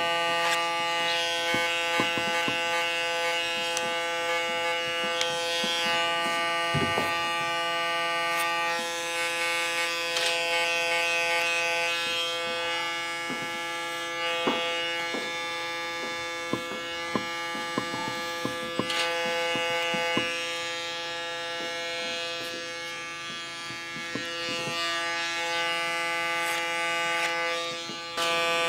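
Electric hair clipper running with a steady buzz as it cuts the nape hair short, with scattered small clicks.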